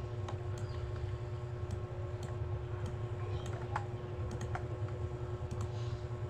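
Scattered, irregular clicks of a computer keyboard being pressed, over a steady low hum.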